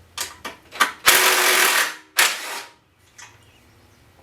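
Cordless drill-driver spinning a socket to back out an engine-cover bolt on a small mower engine: a few clicks as the socket goes on, then a whirring run of just under a second and a second, shorter one.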